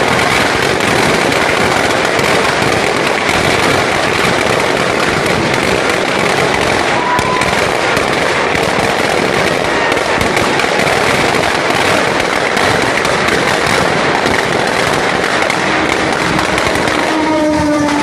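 Dense, unbroken crackling and popping of firecrackers going off in a burning Dussehra effigy, loud throughout. A steady tone joins in about a second before the end.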